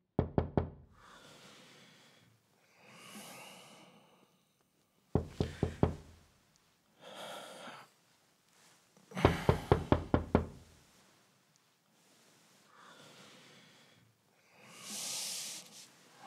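Knocking on a door in three rounds: three quick knocks, then about six, then a longer, louder run of about eight. Between the rounds come a sleeping man's heavy breaths and sighs, the loudest near the end.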